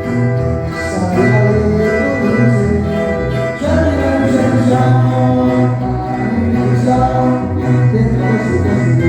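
A live tuba band playing, the tuba holding the low bass notes under a sung melody.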